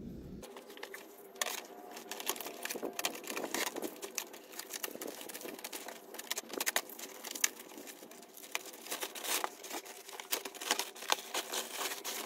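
Unpacking a new car radiator: plastic wrapping crinkling and cardboard and foam packing rustling, in irregular crackles and clicks from about a second and a half in.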